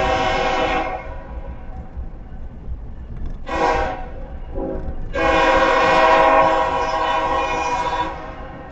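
CSX diesel locomotive air horn blowing for a grade crossing: three blasts of a multi-note chord, a long one, a short one about three seconds later, then a longer one of about three seconds.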